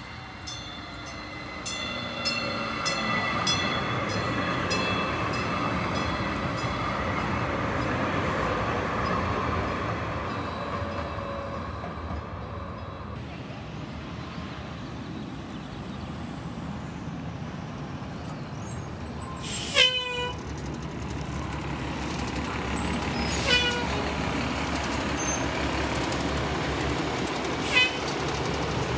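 Light rail train pulling in, its motors whining in several tones that slowly fall in pitch as it slows. Then a diesel city bus running at a stop, its engine a low, even rumble, with three short, sharp sounds (brief toots or brake squeals) in the later part.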